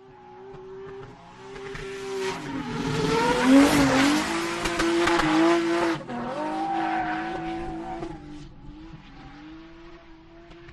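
Car engine revving, its pitch dipping and rising, while the tyres squeal in a drift, loudest from about two and a half to six seconds in; afterwards the engine fades.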